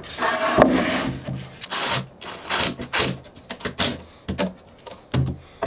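Wooden tabletop scraping and knocking as it is slid onto a wooden frame, followed by a series of irregular clunks and rubs as a cordless drill is worked up into the tight space under the top.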